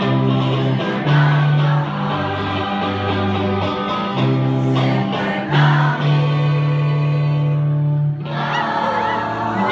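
A mixed choir of men and women singing a song, with long held notes. The music breaks off briefly about eight seconds in, then carries on.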